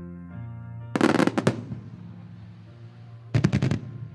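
Fireworks going off as two quick volleys of sharp bangs, about a second in and again near the end, over slow music with long held notes.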